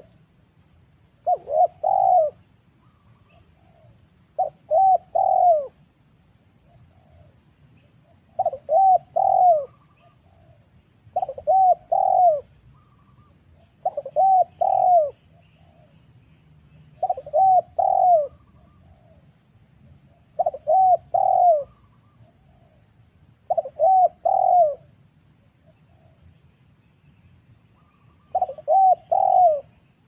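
Spotted dove (tekukur) cooing: short phrases of a few notes each, repeated roughly every three seconds, nine times, with a longer pause near the end.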